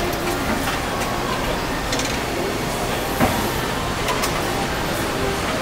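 Steady factory-floor machinery noise of an automated engine assembly line, with a handful of sharp metallic clicks and clanks, the loudest a little past the middle.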